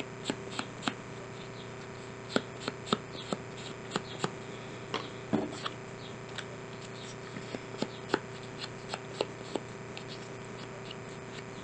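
Irregular light taps and clicks, one or two a second, as a round ink blending tool is dabbed around the edges of a small card tag, with a steady faint hum underneath.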